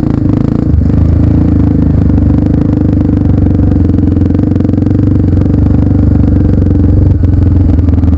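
Off-road motorcycle engine running steadily and loudly, with an even, rapid firing pulse.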